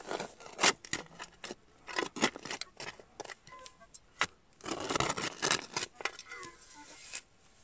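Spade digging into stony soil: a run of sharp scrapes and crunches as the blade bites in, with a longer, louder scraping stretch about five seconds in.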